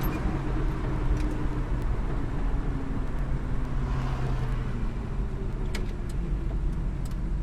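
Vehicle engine and road noise heard from inside the cabin while driving: a steady low rumble with a faint engine hum that shifts slightly in pitch.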